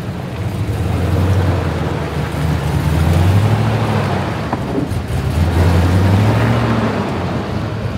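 Nissan GQ Patrol's engine working under load at crawling speed through deep, muddy ruts. It revs up twice, about three seconds in and again about six seconds in, settling back between.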